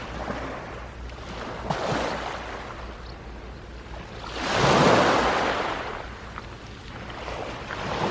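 Sea waves washing in, swelling and fading every few seconds, with the loudest surge about five seconds in.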